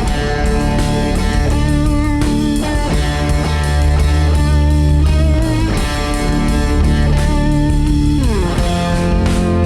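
Rock music led by electric guitar over a heavy low end, with a note sliding down in pitch near the end.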